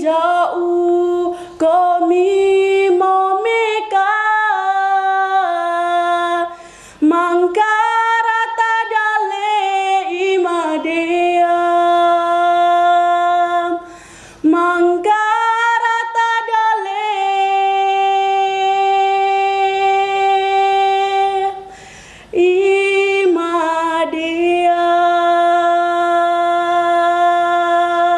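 A girl singing solo, unaccompanied, in long held notes with brief pauses for breath between phrases; the longest note is held for about four seconds past the middle.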